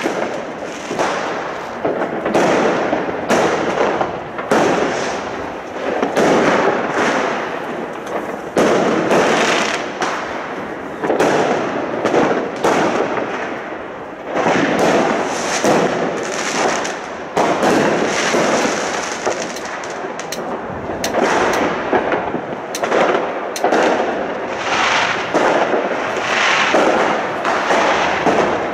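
Fireworks going off nonstop, a dense barrage of overlapping bangs and crackles with no pause.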